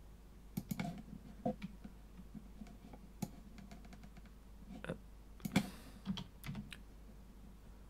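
Faint, scattered keystrokes and clicks of a computer keyboard and mouse, coming at uneven intervals.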